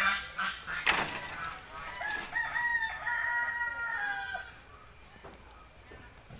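A rooster crowing once, a single long crow starting about two seconds in and lasting about two and a half seconds. A sharp knock comes about a second in.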